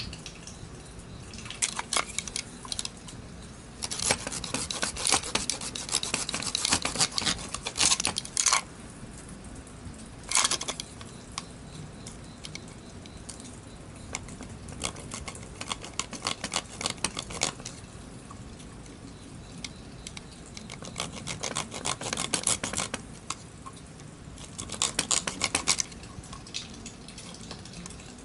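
Bursts of rapid scraping and clicking as a screwdriver is worked against a part clamped in a bench vise, several separate spells of a few seconds each with pauses between.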